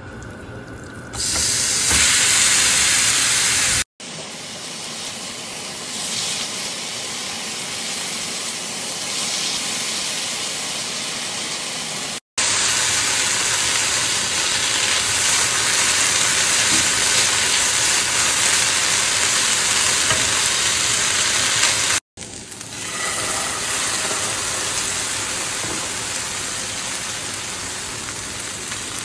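Marinated chicken tikka pieces sizzling loudly in a hot nonstick frying pan over high heat. The sizzle starts about a second in as the chicken goes into the pan, and it cuts out abruptly three times.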